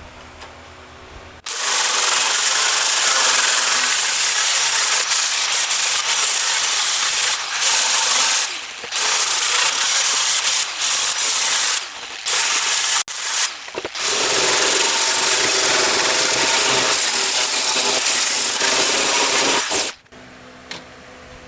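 Power sander running against the rusty metal burner pan of a gas fire pit, stripping the rust. It starts about a second and a half in, with a steady high whine, stops briefly a few times and cuts off near the end.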